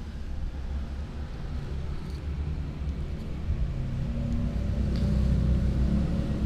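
Low rumble of a motor vehicle's engine with a steady hum, growing louder about four seconds in.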